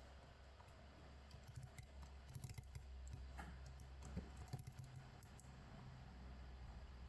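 Faint, scattered clicks and scratches of a lock pick and tensioner working inside a Tostem WN wafer-slider lock, thickest between about two and five and a half seconds in, over a low steady hum.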